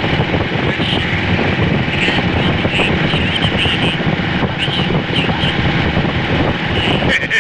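Motorcycle running at steady road speed, its engine drone mixed with a steady rush of wind on the microphone.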